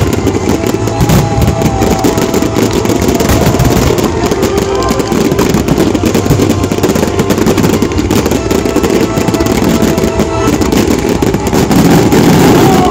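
Fireworks barrage: dense, continuous bursting and crackling from many shells at once, with music playing under it.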